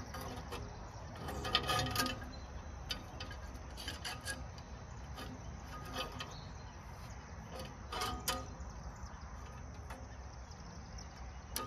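Scattered metal clinks, knocks and scrapes as steel linkage rods and fittings on a Farmall A tractor's engine are handled and fitted, some knocks ringing briefly. The busiest handling comes about a second and a half in and again about eight seconds in.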